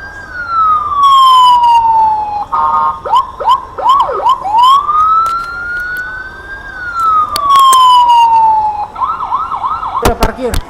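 Electronic vehicle siren cycling through its tones: two long wails, each rising for about two seconds and then falling away, each followed by a burst of fast yelping chirps. A few sharp clicks come near the end.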